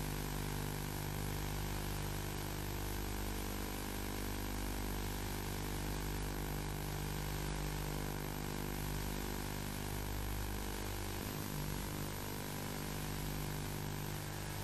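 A steady low droning hum under an even hiss, with no distinct events.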